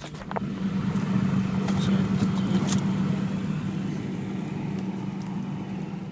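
A steady low motor hum, with a few light clicks and knocks near the start and about two to three seconds in.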